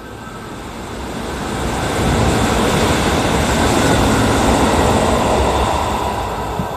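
Kintetsu 12410 series electric limited-express train running past at speed, wheels on rail: the rumble builds over about two seconds, stays loud while the cars go by, then fades as the train draws away.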